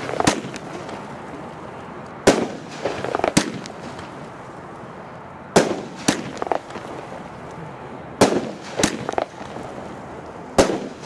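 Consumer fireworks battery (cake) firing its shots one after another, about every two and a half to three seconds. Each shot is a sharp bang followed within about a second by a second bang with a short crackle.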